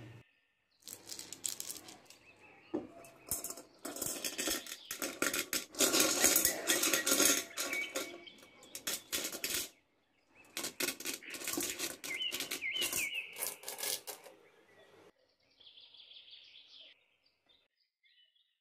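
Pebbles clattering into a glass fish bowl: two long runs of quick clicks and knocks of stone on glass, broken by a short pause about ten seconds in.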